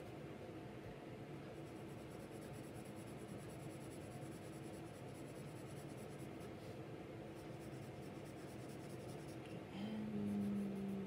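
Graphite pencil shading on drawing paper: soft, steady scratching of the lead in short strokes. A brief steady hum near the end.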